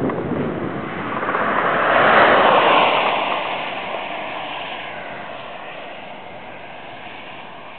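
Jaguar X-Type 2.5 V6 with an aftermarket Mina exhaust passing at about 105 mph. The engine and exhaust note builds to a peak about two seconds in, drops in pitch as the car goes by, then fades steadily as it speeds away.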